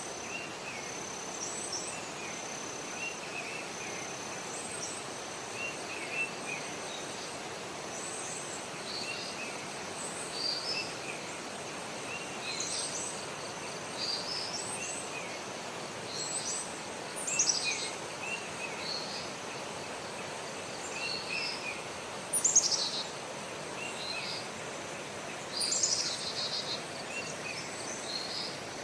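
Birds calling over a steady noisy background: repeated short chirps and a held high note, with three louder high calls that sweep downward, the loudest sounds present.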